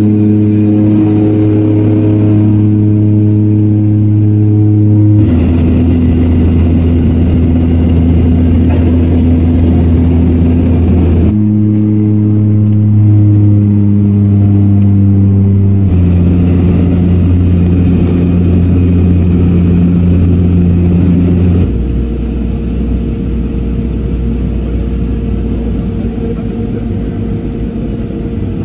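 Steady drone of a seaplane's turboprop engines and propellers heard from inside the cabin, changing abruptly in pitch and level every few seconds as one clip cuts to the next. It is quieter for the last several seconds.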